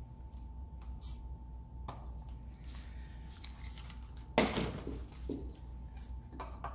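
Hand work on an outboard motor's parts: scattered light clicks, a sudden louder clatter of hard parts about four and a half seconds in, and a smaller knock just after, over a steady low hum.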